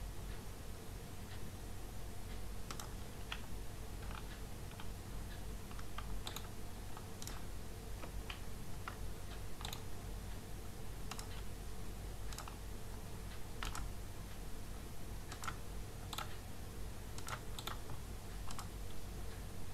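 Irregular clicking of a computer mouse and keyboard, with a steady low hum underneath.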